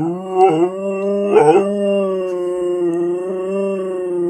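Vizsla howling, one long howl held at a steady pitch with two brief wavering breaks in the first second and a half; the howl is set off by a squeaky toy.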